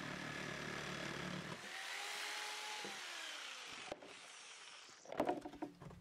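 Corded power saw cutting through half-inch plywood, finishing the cut about a second and a half in. Its motor then winds down with a falling whine, and a few knocks and clatter follow near the end as the cut-out plywood disc is lifted free.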